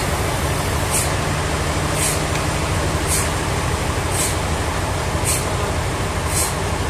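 Sawmill machinery running steadily: a low engine-like hum under constant mechanical noise, with a short hiss repeating about once a second.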